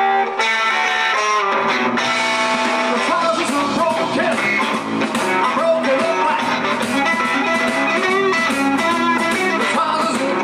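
Blues band playing live, led by electric guitar. After a held chord, the rest of the band comes in about a second and a half in and plays on steadily.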